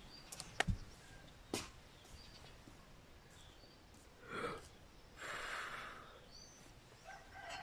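Quiet outdoor ambience with a few light clicks near the start, then two soft breathy sounds like a sigh and an exhale, about halfway and a little later.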